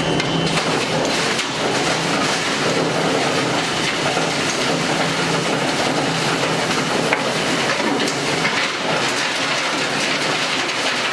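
PNGM 4210 heavy-duty plastic crusher running with a steady, dense clatter and rattle of plastic being chopped by its rotor knives.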